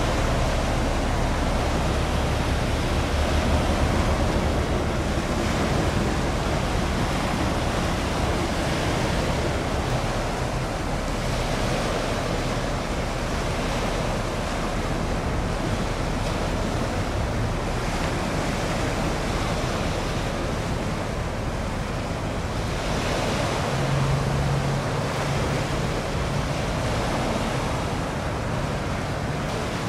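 Steady wash of wind and sea waves, with a low rumble underneath and a brief low hum about three-quarters of the way through.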